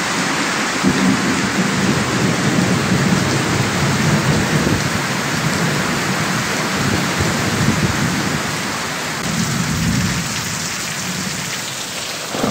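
Heavy rain pouring steadily, with low thunder rumbling beneath it, swelling through the first few seconds and again near ten seconds.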